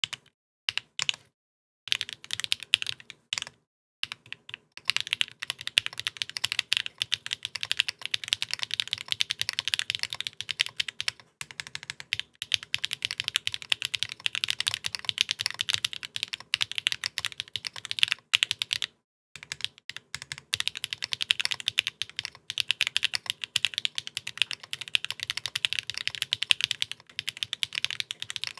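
Custom mechanical keyboard with HMX Macchiato linear switches on a UHMWPE plate, no case foam and no stabilisers, GMK keycaps, being typed on quickly in long runs of keystrokes. The typing stops for brief pauses a few times, most noticeably for about a second after the middle.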